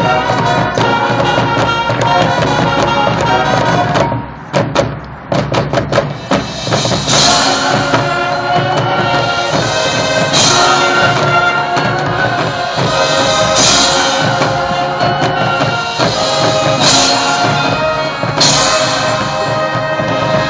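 High school marching band and drumline playing a field show: sustained full-band chords over drums. About four seconds in the band drops out to a few sharp percussion hits, then the full band comes back with strong accents every few seconds.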